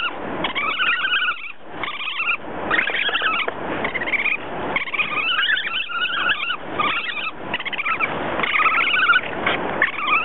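Two Eurasian otters calling at each other in a string of high, wavering calls with short breaks, an encounter that may be a fight or play.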